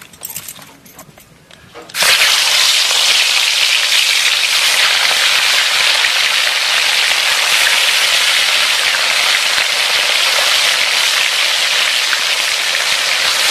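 Turmeric-coated catla fish pieces frying in hot oil in an iron kadai, a loud, steady sizzle. It starts suddenly about two seconds in.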